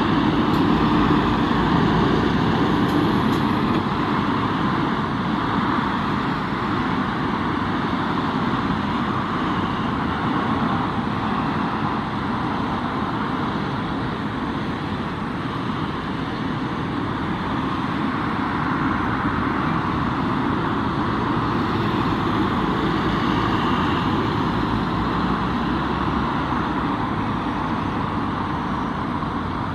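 C-130R's turboprop engines running steadily on the landing rollout and taxi. Three engines are turning; the No.1 engine is shut down with its propeller feathered after an in-flight engine stop.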